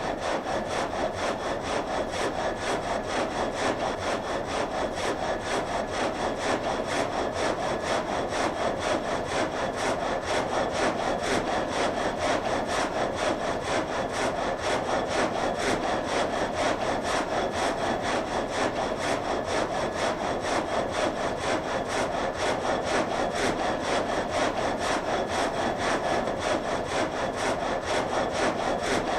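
Water-wheel-driven vertical frame saw cutting through a log, the blade working up and down in a steady, even rhythm of strokes.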